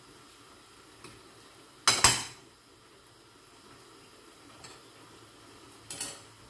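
Cooking utensil knocking against a pot while a sauté is stirred, with a loud double clatter about two seconds in and a smaller one near the end, over a faint steady sizzle of frying.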